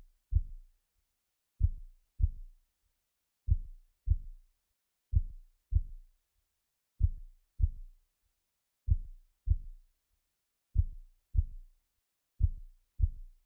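Heartbeat sound effect: soft, low lub-dub double thumps, repeating slowly at about one beat every two seconds.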